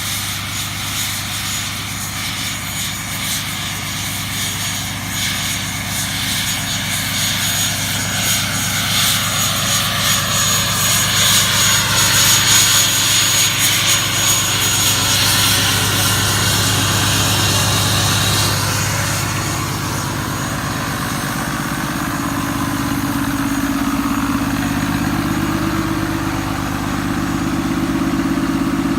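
Ram 2500's 6.7 Cummins inline-six turbo diesel idling with a loud, high-pitched turbocharger whistle over the steady engine note. The whistle and hiss fade a little past the middle, leaving a deeper engine sound.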